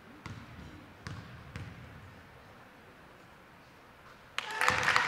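A basketball bounced three times on the gym's hardwood floor by the free-throw shooter before the shot. Near the end, loud crowd noise and music start up suddenly.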